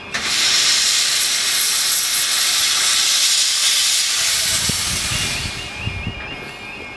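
Robert Stephenson & Hawthorns saddle tank steam locomotive letting off steam: a loud, steady hiss that starts suddenly and fades away after about five seconds, with a few low thuds near the end.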